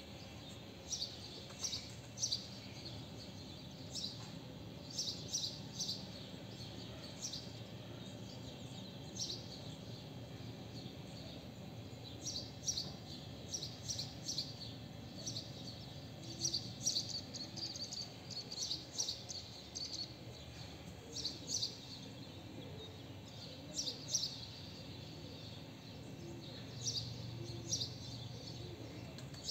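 Small birds chirping: short, high chirps, some single and some in quick runs of several, over a steady low background noise.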